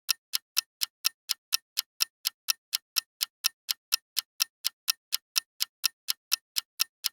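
Clock-style countdown timer sound effect ticking steadily, about four sharp ticks a second, marking the time left to answer a quiz question.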